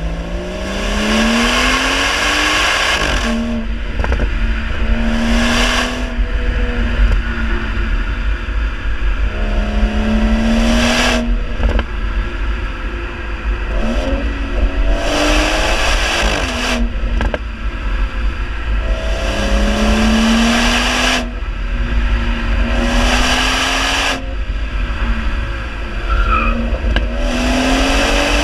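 BMW 340i's B58 3.0-litre turbocharged straight-six exhaust, heard right at the tailpipe, accelerating hard again and again: the pitch climbs and drops back at each upshift, with a few short sharp cracks between pulls.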